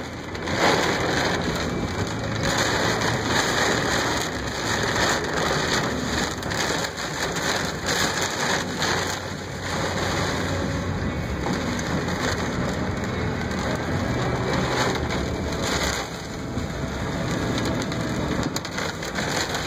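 Heavy rain pelting the windshield and roof of a moving car, heard from inside the cabin as a dense, steady patter, with a faint low hum beneath.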